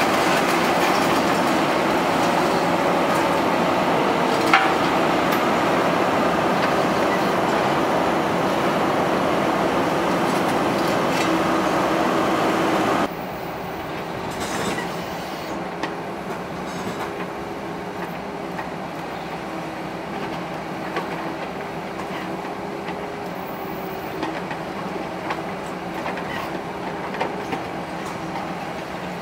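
Volvo EC380HR high-reach demolition excavator working: its diesel engine and hydraulics run steadily with a wavering whine and a few sharp knocks. The whole sound suddenly becomes quieter about a third of the way in.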